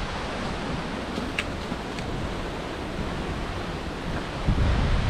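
Strong wind rushing steadily through the forest canopy, with wind buffeting the microphone again near the end.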